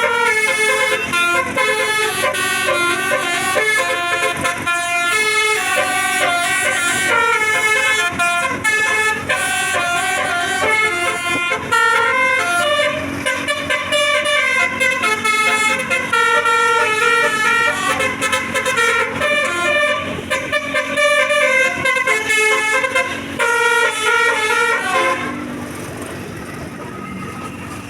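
Basuri tour bus's telolet horn playing a long tune of quickly changing notes. It stops about three seconds before the end, leaving a quieter steady background.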